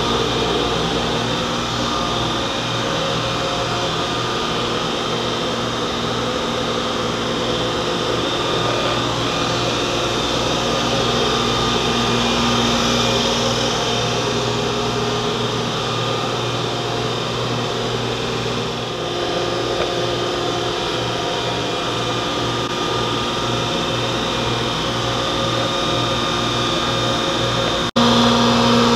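Woodshop machinery, a planer-molder with its dust collector, running steadily with a continuous whirring hum. Near the end the sound cuts out for an instant and returns louder, with a stronger low hum.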